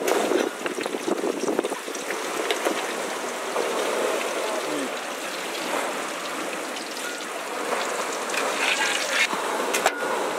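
Hot oil sizzling and crackling steadily in a large iron kadai as crab and egg pieces deep-fry.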